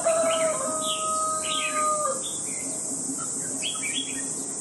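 A rooster crowing, its long held final note running about two seconds and dropping away at the end. Small songbirds chirp in short calls throughout, over a steady high insect drone.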